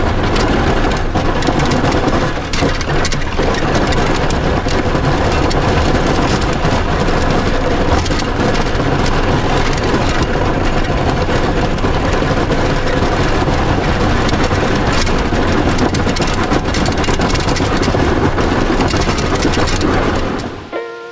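Chevy pickup with a Fisher plow blade driving and pushing heavy wet snow, heard from a camera mounted at the blade: a loud, steady rush of engine and plowing noise that cuts off shortly before the end.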